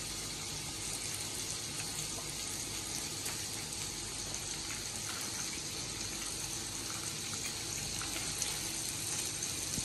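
Meat sizzling steadily on a tabletop barbecue grill, with faint scattered crackles.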